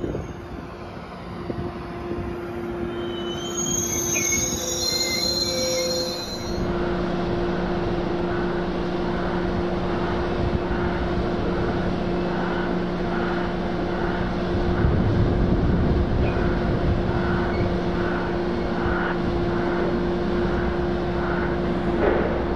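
Train wheels squealing on the rails for the first six seconds or so, then the steady drone of a locomotive with a faint regular beat about one and a half times a second.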